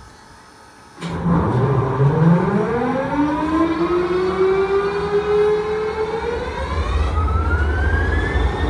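A WDP-4 (GT46PAC) locomotive's 16-cylinder EMD 710G3B diesel engine starting up. It catches suddenly about a second in, then a whine rises steadily in pitch over several seconds as the engine and its turbocharger spool up, over a low diesel rumble.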